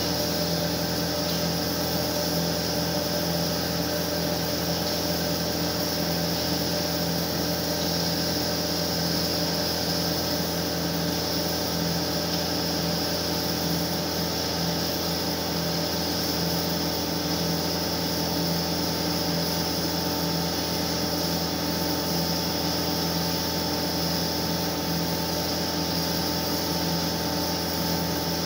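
Bomar Transverse 610.440 DGH metal-cutting band saw running steadily, a constant machine hum with no breaks or changes.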